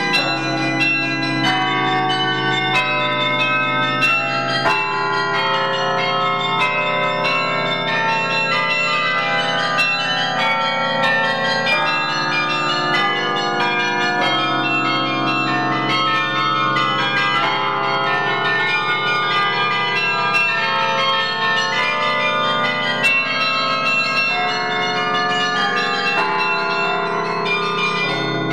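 Carillon bells played from the baton keyboard in a fast, continuous running passage: many bell notes struck each second, each ringing on under the next.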